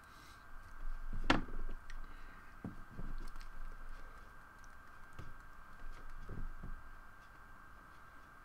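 Soft scattered taps, knocks and clicks of work at a computer desk, the loudest about a second in, over a steady background hum.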